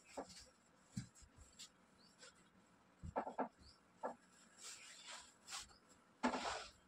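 Bedsheets and blankets rustling as they are gathered and smoothed on a bed, in scattered short swishes with a few soft thumps; the longest, loudest swish comes near the end.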